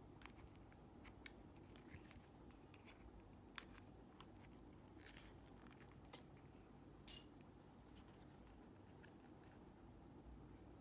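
Faint, scattered small clicks and scrapes of a plastic Sony MDR-Q38LW clip-on headphone earpiece being handled and pried at with a thin metal tool.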